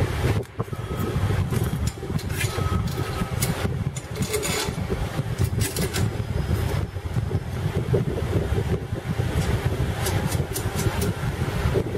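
A steady low rumble, with scattered light clicks and clinks of steel fittings and a wrench being handled on a stainless steel machine bowl.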